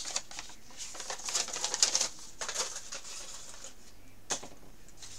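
Thin plastic packaging crinkling and rustling as it is handled, in irregular bursts, with one sharper crackle about four seconds in.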